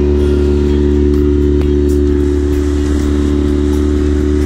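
A boat's engine running at a steady speed, a constant low drone with an unchanging pitch.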